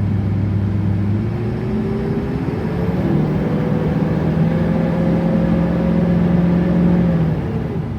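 LLY Duramax 6.6 L V8 turbodiesel accelerating hard: the engine pitch climbs from about a second in, holds, then eases off near the end. Under it is a steady loud rush of the engine fan, which turns with the engine because its fan clutch is welded solid and sounds 'like a hurricane'.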